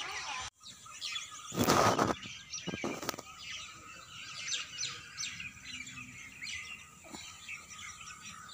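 Many small birds chirping throughout. About two seconds in, a loud half-second rush of noise, the loudest thing here, followed by a shorter one a second later.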